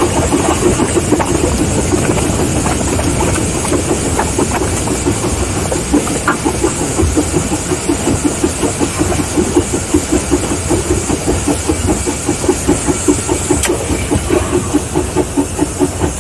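Mason Bogie 0-6-4T steam locomotive under way, heard from its cab: a steady rhythm of exhaust beats over a constant hiss.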